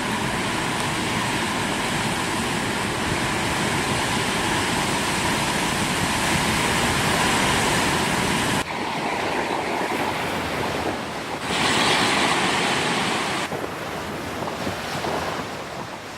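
Heavy surf and storm-force wind gusts buffeting the microphone in a severe tropical storm. The sound changes abruptly about eight and a half seconds in, the deep rumble dropping away, and shifts again a few seconds later.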